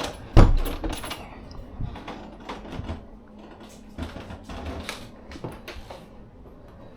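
One loud knock about half a second in, followed by a string of irregular light clicks and taps.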